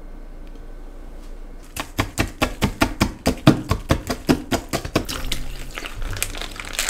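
A rapid run of sharp knocks, about five a second, starting about two seconds in and stopping after about three seconds; music comes in near the end.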